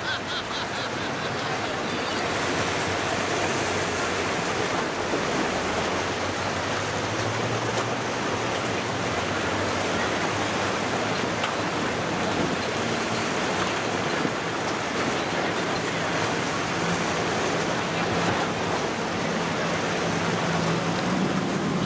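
Steady rush of waves and water, with a faint low boat-engine drone underneath at times.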